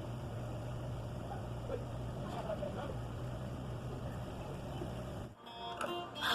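Steady low background hum with a faint hiss, cut off abruptly about five seconds in, then pop music with sung tones starting near the end.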